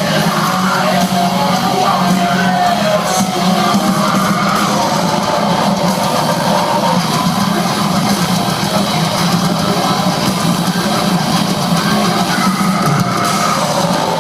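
Metal band playing live, with distorted electric guitars over drums and bass, loud and dense throughout.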